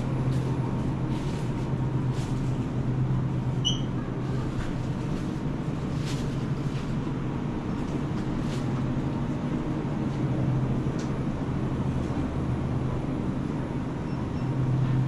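Steady low hum of supermarket refrigerated display cases and ventilation, with a brief high beep about four seconds in.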